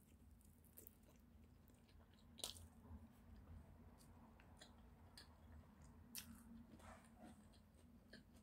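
Faint close-miked chewing and mouth clicks, with soft taps of wooden chopsticks against the plastic sushi tray. The sharpest clicks come about two and a half seconds in and again about six seconds in.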